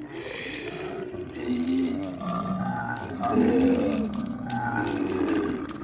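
Zombie growls and groans, a horror sound effect, several overlapping, louder in the middle.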